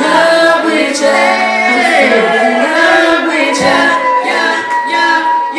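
A woman singing a drawn-out melodic line with no clear words, holding one long note near the end.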